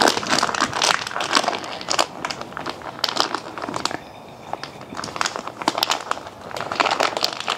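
Crinkling and crackling from slime-kit materials being handled by hand: a dense run of small clicks and rustles that eases off about four seconds in and picks up again near the end.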